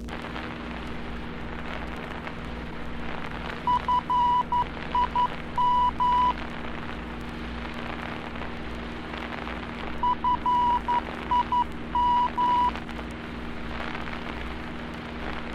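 Fillmore VOR's Morse code identifier, F-I-M, keyed twice about six seconds apart as a single high tone in dots and dashes in an aircraft navigation receiver. Radio static hiss and a steady hum run underneath.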